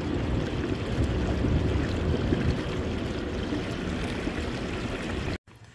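Canoe under way at full speed on a 30 lb electric trolling motor: a steady rush of water along the hull mixed with wind noise. It cuts off abruptly near the end, leaving quiet room tone.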